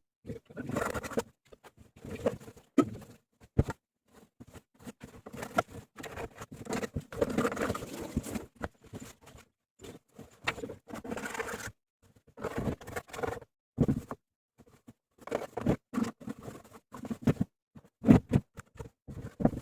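Irregular scraping, clicking and knocking of hands and tools working on the parts of an LG washing machine being taken apart for a bearing replacement, in short bursts with brief silences between.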